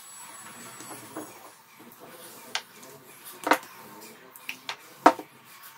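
Several sharp clicks and knocks as a glass oil bottle is handled and set down on a marble counter, the loudest about three and a half seconds in and another about five seconds in, between soft sounds of hands pressing dough.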